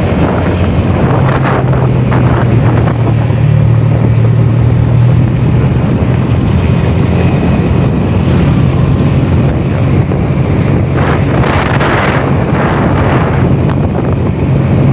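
Motorcycle engine running steadily at cruising speed, heard from the moving bike, under heavy wind buffeting on the microphone, with a few louder gusts of wind about two thirds of the way through.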